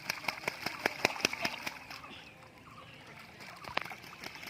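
Ducks splashing in water while bathing: quick bursts of sharp splashes, busiest in the first two seconds, then quieter, with one more splash near the end.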